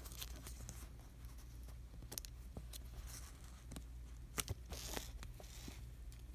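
Faint scattered clicks and short rustles, as of something being handled, over a steady low hum.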